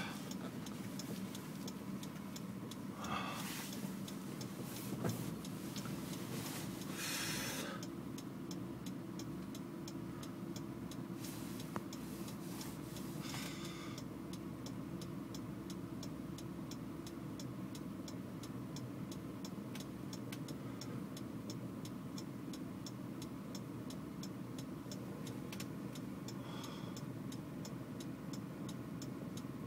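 Car engine idling, heard inside the cabin, with a steady run of even ticks from the indicator relay. A few brief louder noises come in the first dozen seconds or so.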